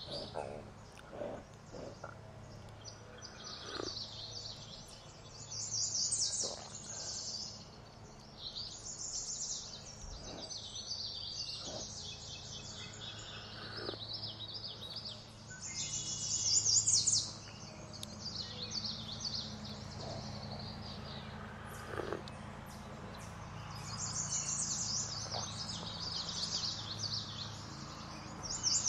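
Songbirds singing in repeated fast, trilling phrases, with a wood campfire giving occasional crackles and pops. A faint steady low hum runs underneath.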